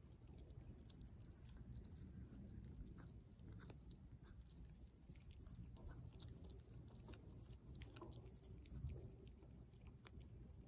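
A cat chewing and biting into a whole raw fish: faint, irregular crunching clicks over a low steady rumble.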